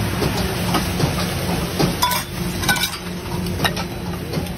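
Metal utensils clinking and scraping on a hot iron griddle (tawa) while egg fries on it, the clinks coming irregularly about every half second over a steady low hum.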